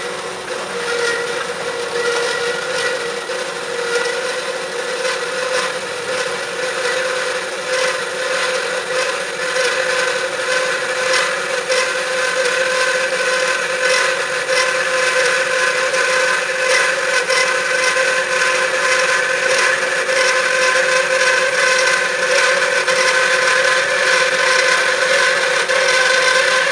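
CORMAK S-280R semi-automatic metal band saw running, with a steady whine over a fast, dense rasp that grows gradually louder.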